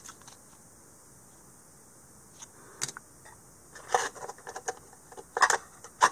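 Cardboard 2x2 coin holders with coins in them being handled and sorted through: a run of light clicks and rattles, starting about two seconds in and growing busier toward the end.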